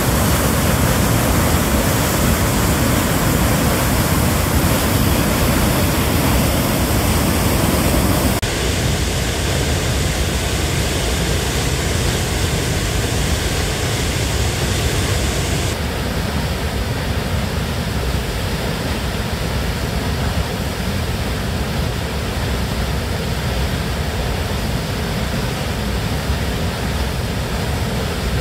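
Large waterfall in heavy flow crashing into a rock gorge: a loud, steady rush of falling water. Its tone changes abruptly twice, about a third of the way in and again just past the middle.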